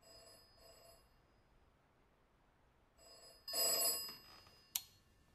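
Telephone bell ringing in a double-ring pattern: two short faint rings, a pause of about two seconds, then a louder ring. A single sharp click follows near the end.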